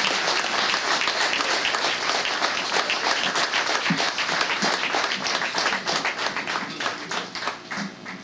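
An audience applauding: a dense patter of many hands clapping that thins out and fades near the end.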